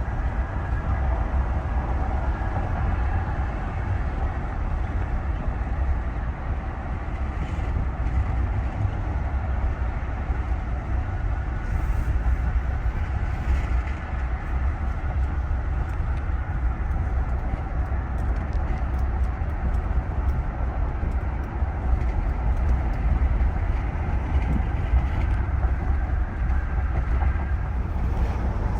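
Steady in-cabin driving noise in a 2023 Ram 1500 Limited pickup: a low road rumble with wind noise over it. The wind noise is less isolated than expected despite the truck's double-pane windows.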